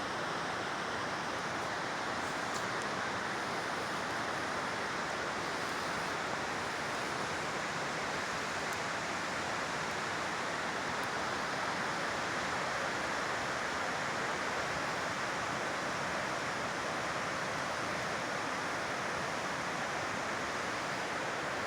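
Steady rushing of a creek's flowing water, an even noise that holds the same level throughout.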